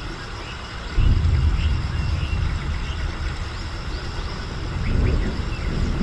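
Outdoor ambience: a steady low rumble that jumps louder about a second in, with faint short chirps of small birds above it.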